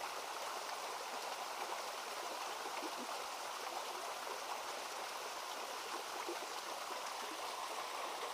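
Stream water running steadily, a constant even rush with no breaks.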